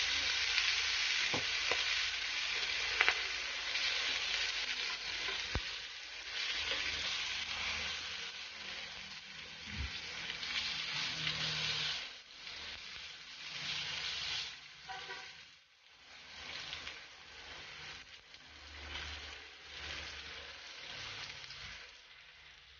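Sauce-basted pork belly slices sizzling on a hot electric grill pan: a steady crackling hiss that fades noticeably after about twelve seconds, with a few light clicks early on.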